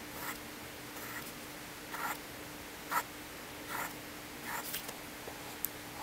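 Wooden pencil scratching short strokes on paper along a ruler's edge, roughly one stroke a second, with a sharp tick near the end.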